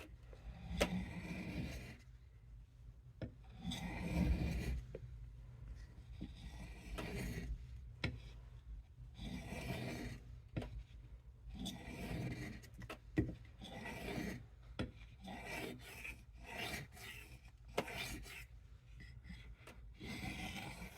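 Knife blade being drawn across an oiled soft Arkansas sharpening stone, repeated rasping strokes roughly one every second or two, with a few light clicks between them.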